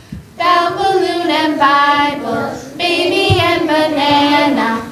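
A group of young children singing together in two long, drawn-out phrases of an alphabet phonics song.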